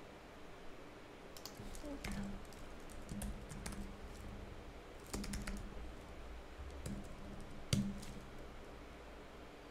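Typing on a computer keyboard in short runs of keystrokes, entering a command in a terminal, with one louder key strike near the end.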